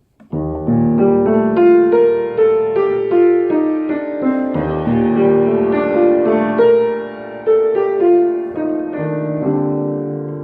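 Piano music: a melody of notes with sustained chords beneath, starting about a third of a second in.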